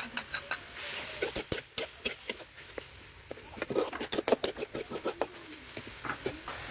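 Metal ladle scraping and clanking against a steel wok while stir-frying vegetables and sliced beef, in quick irregular knocks that come thickest in the second half, with a brief burst of sizzling about a second in.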